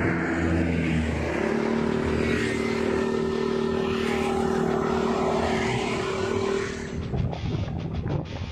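Yamaha Aerox 155 scooter's single-cylinder engine revved through its exhaust: the pitch steps up about a second in and is held steady at high revs, then drops back near the end into an uneven, popping idle.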